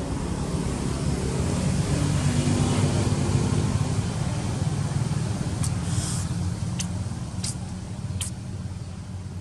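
Low engine rumble of a passing motor vehicle, growing louder and then fading away. Near the end come four short, high-pitched clicks.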